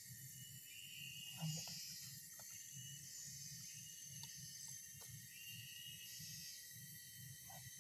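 Quiet outdoor ambience: a faint, steady high hiss over a low rumble, with a few soft ticks, and one word spoken quietly about a second and a half in.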